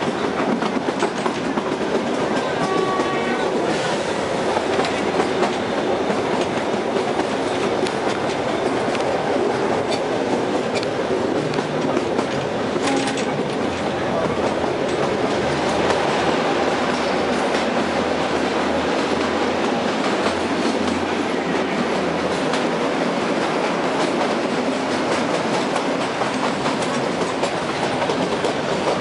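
Kalka–Shimla narrow-gauge toy train running, its wheels clattering steadily over the rail joints, heard from inside a coach.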